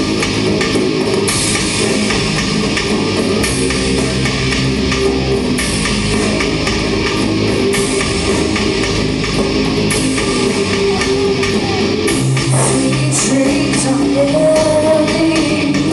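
Live rock band playing loud, with electric guitar and drum kit and a voice singing.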